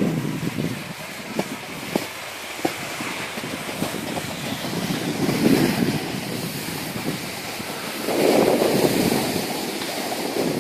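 Wind buffeting the microphone in rushing gusts, swelling louder about halfway through and again near the end, with a few faint clicks early on.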